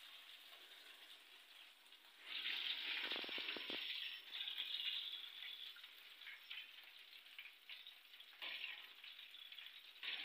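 Breaded chicken pieces deep-frying in hot oil: a steady sizzle that swells louder for a few seconds from about two seconds in, with a few low knocks around three seconds in, and swells again briefly near the end.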